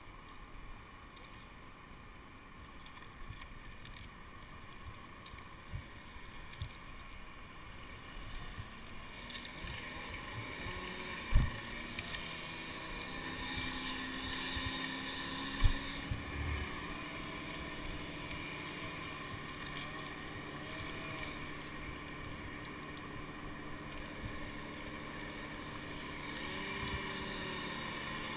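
Muffled knocks and bumps of a climber's helmet camera and gear against a pine trunk as he climbs down it, two of them sharper about 11 and 16 seconds in, over a steady drone and some wind on the microphone.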